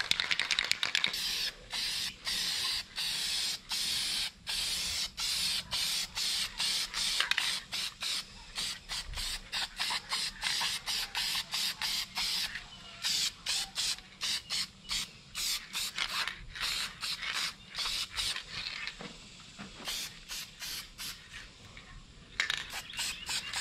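Aerosol can of Duplicolor silver high-heat engine paint hissing in short, rapid bursts as a light coat is sprayed on, the hiss stopping and starting several times a second. It goes fainter and more broken for a few seconds near the end.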